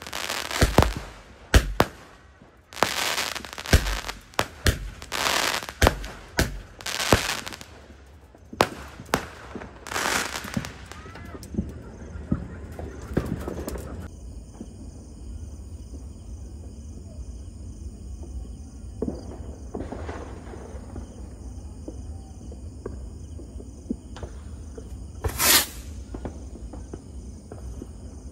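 Fireworks going off in quick succession: many sharp bangs and crackling bursts for about the first half. Then the blasts fall away to scattered distant pops over a steady high chirring of insects, with one loud half-second whoosh near the end.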